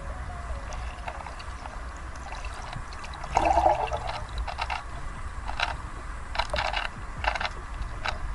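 A Rubik's cube being turned underwater, giving scattered clusters of quick plastic clicks over a muffled water rumble. A brief bubbling gurgle comes about three and a half seconds in.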